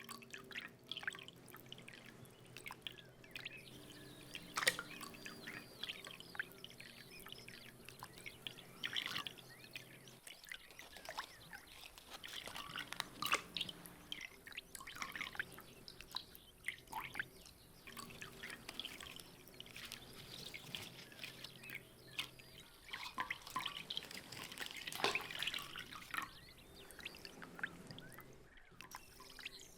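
Small water splashes, drips and trickles at irregular intervals, the sound of turtles swimming and paddling at a pond's surface, over a faint steady low hum.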